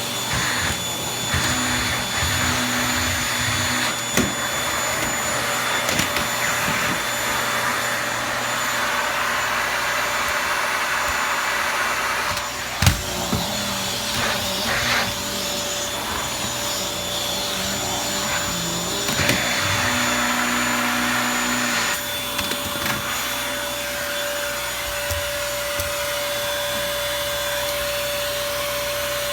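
Toshiba VC-PB9 vacuum cleaner running steadily with a high whine over its rushing airflow, with one sharp knock about 13 seconds in. From about 22 seconds in, the whine settles into a steadier tone.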